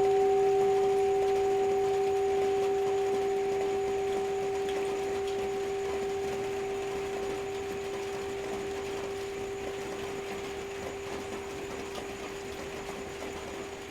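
Tibetan singing bowl ringing on after a strike, its steady two-note hum slowly dying away, with an even hiss of rain underneath.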